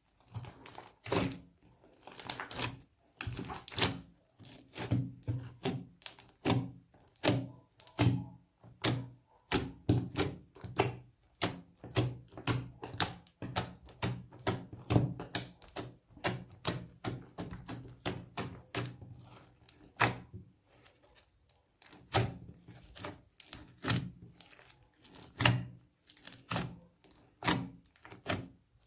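Slime being squeezed and poked by hand, its trapped air popping in a dense run of sharp clicks and soft thumps, a few a second, with a brief pause past the middle.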